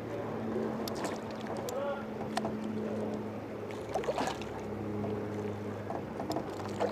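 Boat motor running with a steady low hum that shifts in pitch about four seconds in, with scattered light clicks and knocks.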